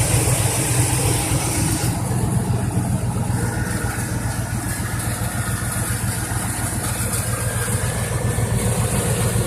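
2000 Lincoln Navigator's V8 engine idling steadily under an open hood. A high hiss running alongside it stops abruptly about two seconds in.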